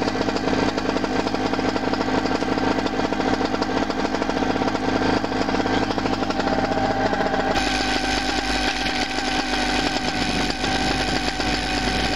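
The Bluebird ultralight's 16-horsepower paramotor engine running steadily, with an abrupt change in its tone a little past halfway.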